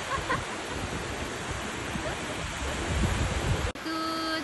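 Small sea waves breaking on a sandy shore with wind buffeting the microphone: a steady rush of surf. It cuts off abruptly near the end, giving way to a single steady high-pitched held tone.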